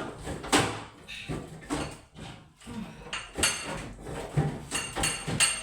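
Dishes and containers clinking and clattering as they are handled and set down, a series of sharp knocks and clinks with some ringing.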